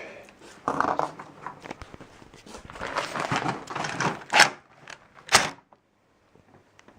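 Handling noise from tools and door hardware being shifted about, ending with two sharp clacks about a second apart.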